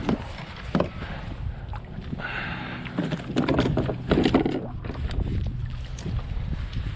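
Wind rumbling on the microphone, with scattered knocks and rustling on a fishing kayak, busiest about three to four and a half seconds in.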